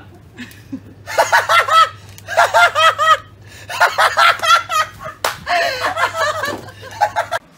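People laughing hard in several loud bursts of repeated 'ha-ha' syllables.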